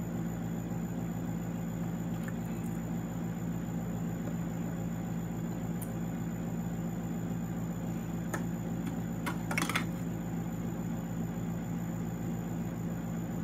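A steady low mechanical hum, with a few light clicks and a short clatter about ten seconds in.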